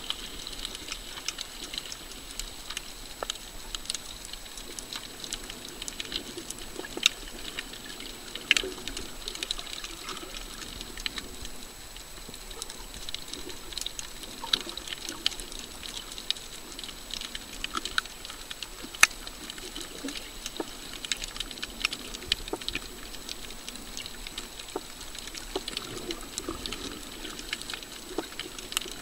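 Underwater sound over a coral reef: a steady hiss dotted with irregular sharp clicks and crackles, a few much louder than the rest.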